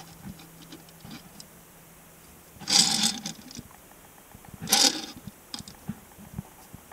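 Handling noise from a diecast stock car being turned and moved by hand on a wooden tabletop: two short rubbing sounds, about three and five seconds in, with a few small clicks.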